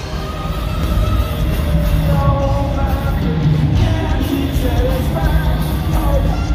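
Music with a singing voice over a strong bass line.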